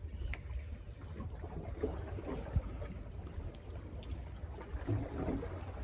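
Small sea waves lapping and sloshing against shoreline rocks, over a steady low rumble, with a few faint knocks.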